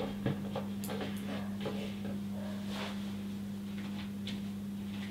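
Light, scattered clicks and taps of plastic toy figures being handled and set down, over a steady electrical hum.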